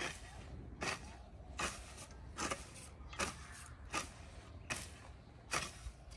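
A metal hoe blade chopping into and dragging through loose soil in a steady rhythm, about one stroke every 0.8 seconds.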